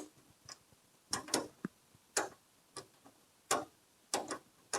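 Exterior door handle and bear claw door latch being worked, giving a series of about ten sharp clicks at irregular intervals as the handle's lever engages the latch.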